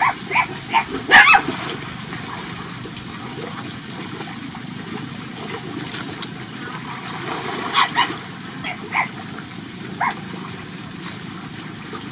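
Short, high-pitched animal calls in quick clusters: several in the first second and a half, then more about eight to ten seconds in, over a steady background hiss.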